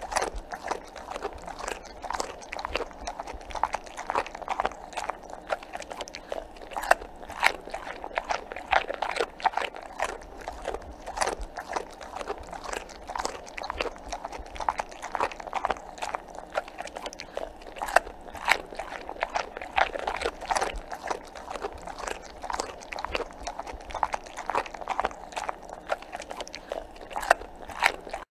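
A dog eating, with wet chewing and irregular crunches, several a second, running on steadily.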